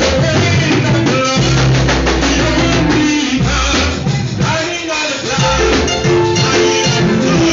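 Live church band playing a worship song, the drum kit keeping a steady beat under the instruments, with no sung words.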